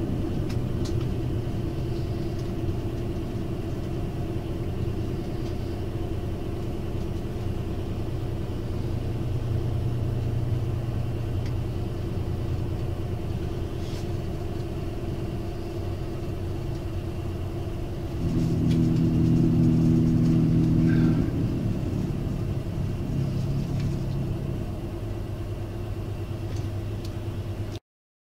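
Interior running sound of the KiHa 182-501 diesel railcar: the underfloor DML30HSJ engine and running gear make a steady rumble. About two-thirds of the way in, a louder humming tone with several pitches rises for roughly three seconds.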